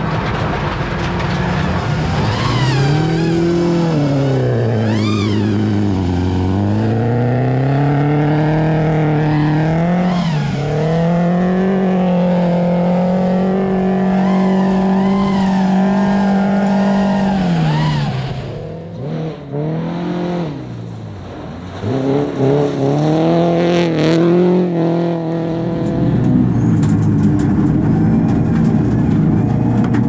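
Subaru rally car's flat-four boxer engine driven hard, its note climbing and falling again and again through throttle and gear changes. About two-thirds through, the revs and level drop away for a few seconds before the engine picks up again with quick blips.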